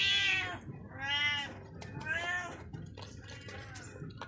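Domestic cat meowing repeatedly, about one drawn-out meow a second, the first ones loud and the last fainter.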